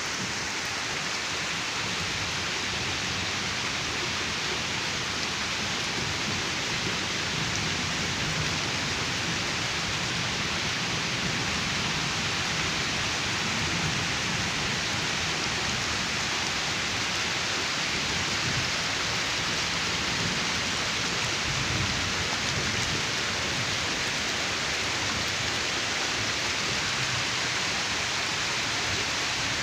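Heavy rain falling steadily in strong wind, an even, unbroken hiss of rainfall.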